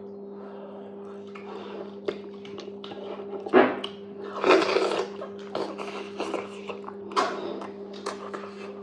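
Close-miked eating of fufu and okra soup: small wet mouth clicks and smacks, with louder bursts of mouth noise about three and a half, four and a half and seven seconds in, over a steady low hum.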